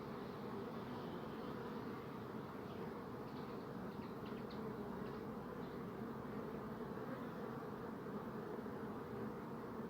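A swarm of bees buzzing in a steady, dense hum. A few faint high chirps come through between about three and six seconds in.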